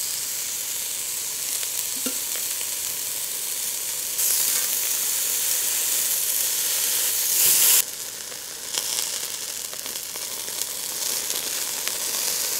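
Thin slices of beef tongue sizzling on a wire grill net over charcoal in a shichirin, a steady hiss that grows louder about four seconds in and drops back near eight seconds in.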